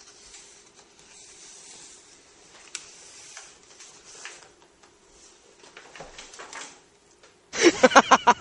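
Quiet handling of a stack of books on a wooden table: soft rustling and shuffling with a light knock about three seconds in, over a faint steady hum. A voice starts loudly just before the end.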